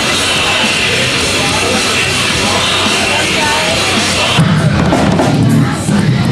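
Heavy metal band playing live: loud distorted guitars, drums and cymbal wash. About four seconds in, the sound changes abruptly to a duller, bass-heavy guitar with the treble gone.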